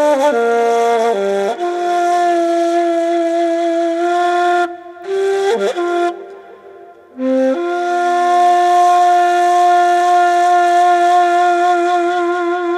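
Ney (Turkish end-blown reed flute) playing a slow, breathy solo melody, stepping between held notes. It breaks off briefly about five seconds in, then settles on one long held note that wavers toward the end.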